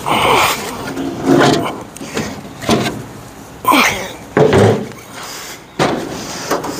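About six irregular knocks and scrapes of metal body parts being handled and shifted on a 1950 Ford F1 pickup during hood removal.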